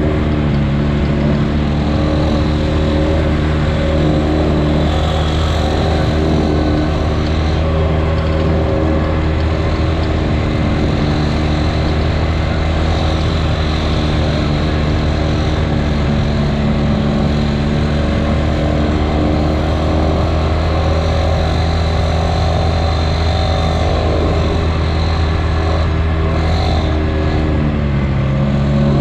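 Side-by-side UTV engine running at a steady speed, its pitch dipping slightly near the end.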